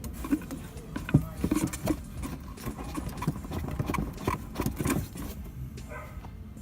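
Suspension of a Toyota Etios sedan knocking and clunking irregularly, a string of short knocks with the loudest about a second in, over a low steady rumble. The car is two months old and the dealer calls this noise a characteristic of the model, not a defect.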